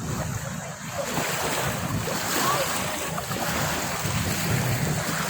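Ocean waves washing onto a beach, a steady surf noise, with wind buffeting the microphone as a low rumble.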